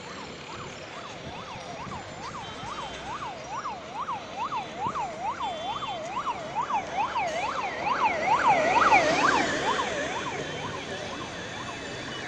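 Emergency vehicle siren in a fast yelp, about three rising-and-falling sweeps a second, growing louder to a peak near the end and then fading, over the rush of road traffic.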